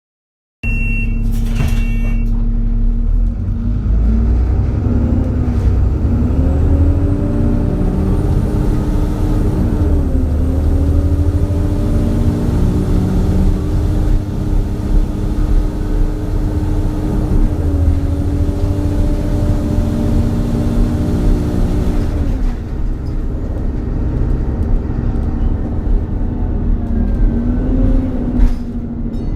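An ADL Enviro400 Trident double-decker bus heard on board while driving, its engine note rising as it pulls away and dropping back several times with gear changes and easing off. This is the loud running state the title calls 'Hoover mode'. A brief high beep sounds about a second in.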